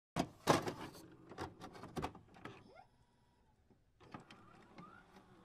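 Glitch-style intro sound effect: a quick run of sharp electronic clicks and short rising whirs, a pause of about a second, then more clicks and another short rising whir.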